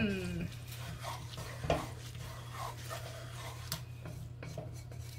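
Wooden spoon stirring linguine and butter in a stainless steel pot, with soft scraping and a few light knocks against the pot, over a steady low hum.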